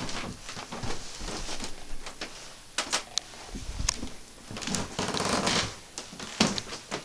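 Irregular clicks and knocks of footsteps and handheld-camera handling, with a longer rustle about five seconds in.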